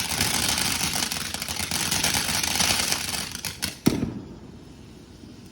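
A firework crackling and hissing with many rapid small pops. It ends about four seconds in with one sharp crack.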